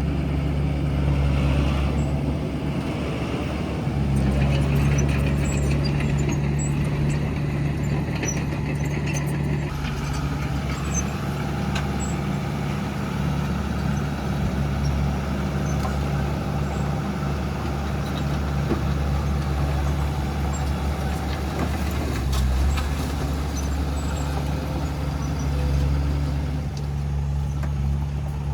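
Diesel engines of heavy earthmoving machinery (bulldozer and dump truck) running steadily as a continuous low drone, swelling slightly now and then.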